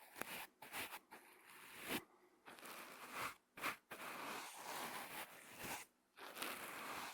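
Brush strokes rubbing directly on the microphone: irregular scratchy, crackling swishes with brief pauses between strokes.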